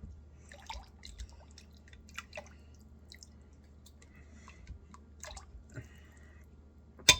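Scattered faint drips and small wet sounds as tender braised meat is lifted out of its cooking liquid, with one sharp knock near the end.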